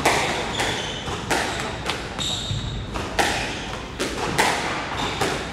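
A squash ball being hit again and again: sharp smacks of the racquet and of the ball off the walls, ringing in the court, with shoes squeaking on the wooden floor twice.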